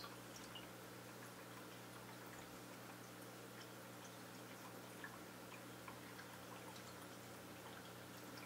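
Near silence: a faint steady low hum with scattered soft ticks and drips, the quiet room tone of a running aquarium.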